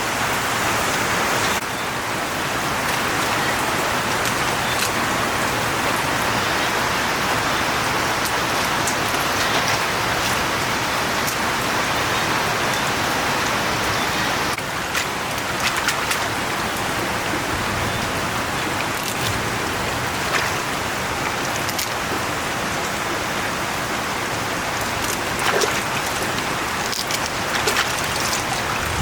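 Heavy rain falling steadily, a dense hiss with scattered sharper drop ticks in the second half.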